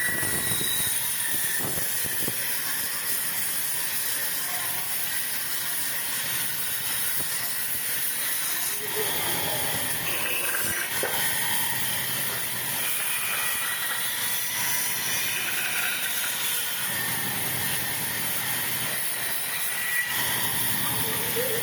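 Sawmill machinery running steadily: an even mechanical noise under a constant high hiss, with no distinct cuts or impacts.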